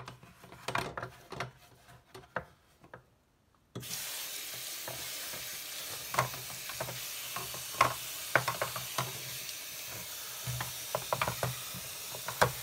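A few light plastic clicks and taps, then a tap is turned on about four seconds in and water runs steadily into a sink, with scattered clatter and knocks from the washing machine's plastic detergent drawer being handled under it.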